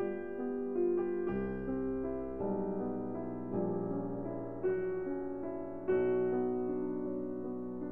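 Slow, gentle piano music, a new chord struck about every second and left to fade.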